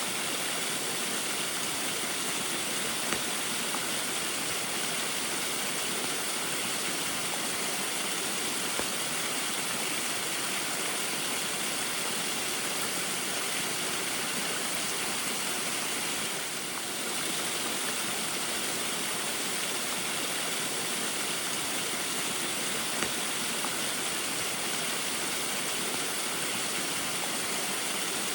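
Small waterfall splashing steadily in the rain, an even rushing hiss with a few faint drip-like ticks; the level dips briefly about two-thirds of the way through.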